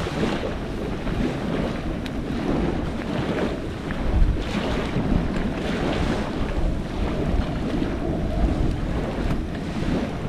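Wind buffeting the microphone in steady gusty rumbles, with a few faint pops from a wood campfire.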